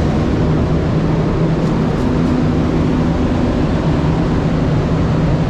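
Automotive paint booth's ventilation fans running, a super loud steady rush of air with a low hum underneath.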